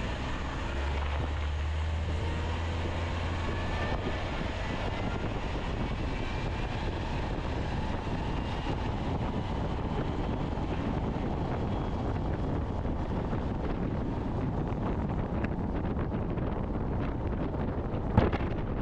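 Crop-spraying aircraft's engine droning, its pitch slowly gliding, with wind buffeting the microphone. A single sharp knock near the end.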